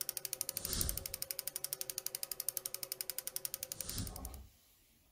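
Clicking-gears sound effect for an animated logo: a fast, even ratchet-like ticking of about a dozen clicks a second over a faint hum. Two whooshes with a low thud come about a second in and about four seconds in. It stops about four and a half seconds in.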